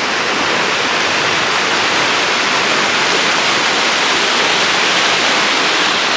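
Loud, steady rushing of running water, beginning abruptly and holding even throughout.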